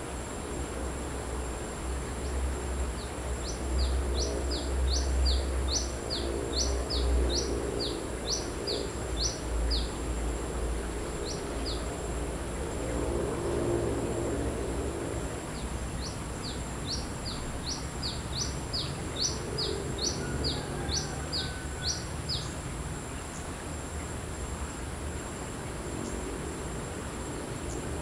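Brown-throated sunbird (kolibri kelapa) singing: quick runs of sharp, high, downslurred notes, two or three a second. One run starts a few seconds in and lasts about seven seconds; after a pause a second run of about six seconds follows.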